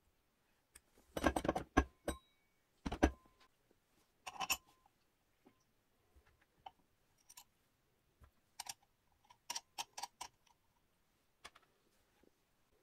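Clinks and knocks of small iron and steel parts being handled and fitted: a flat arm, a washer and a wing nut on the base of an old iron pottery wheel. The loudest cluster of knocks comes about a second in, with more around three and four and a half seconds, then sparser light ticks.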